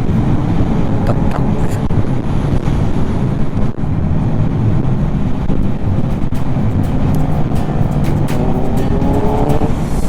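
Motorcycle engine running under way with wind rush, its pitch rising in the last few seconds as it accelerates.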